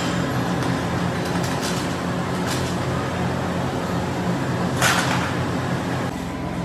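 Melting furnace running with a steady rushing noise and low hum while a steel skimmer scrapes dross off molten aluminium in the crucible, with light scrapes and one sharper, louder scrape about five seconds in.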